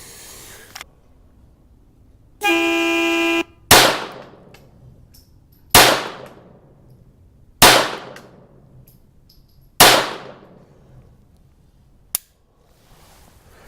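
A one-second beep, then four .22 LR pistol shots from a CZ-75 Kadet, about two seconds apart, each with a short ringing tail, followed by a small click. The pistol did not feed its last round: the cold-weather ammo is too weak to cycle the slide reliably.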